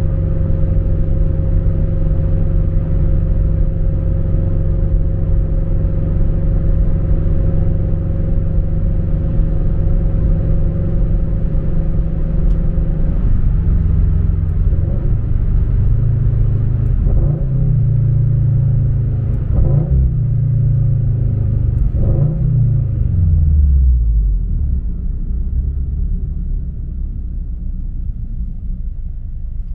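Cabin sound of a Subaru BRZ's flat-four boxer engine through a MAperformance 3-inch catback exhaust: a steady low rumble while cruising. About halfway through the revs rise and fall several times. Near the end they drop and settle into a lower, quieter drone.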